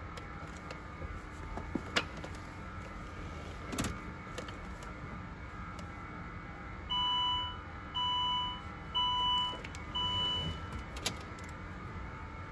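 A couple of sharp clicks, then four electronic beeps at a steady pitch, each about two-thirds of a second long and about a second apart.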